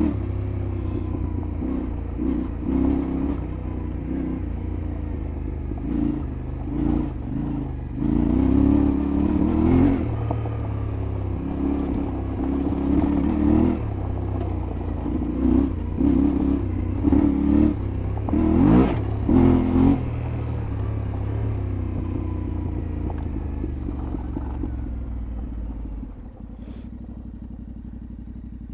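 Yamaha Ténéré 700 World Raid's parallel-twin engine under way off road, revving up and down in repeated throttle surges. Near the end it drops to a quieter, steady low-speed run.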